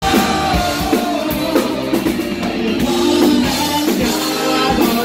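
Live rock band playing, with a man singing lead over a drum kit and guitar.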